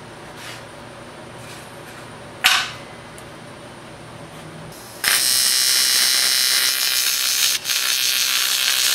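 AC TIG welding arc on thick aluminum, shielded with a 50/50 helium-argon mix, striking about five seconds in: a loud, steady buzzing hiss that drops out for an instant once and then carries on. Earlier there is a single short, sharp sound.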